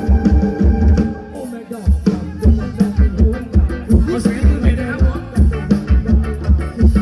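Band music with a steady drum-kit beat, bass and a sung melody; the beat drops out briefly about a second and a half in.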